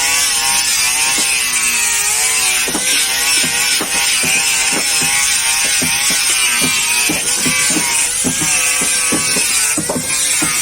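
Hammer blows on wooden boat hull planks, about two a second, while the planks are fitted, over a running machine whose pitch wavers slowly up and down.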